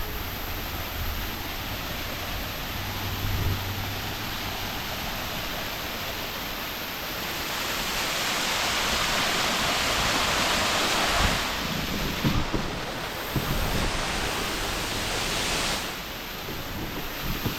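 Radau Waterfall's water rushing in a steady hiss. It grows louder and brighter from about eight seconds in until about sixteen seconds, with a few low bumps near the middle.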